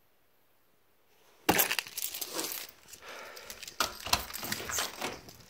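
Car key fob on a metal carabiner key ring being picked up, clinking and jangling. It starts sharply about a second and a half in, followed by several more separate clinks and knocks as the keys are handled.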